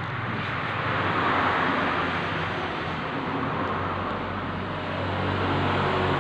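Steady noise of passing road traffic, engines and tyres, swelling about a second in and again near the end.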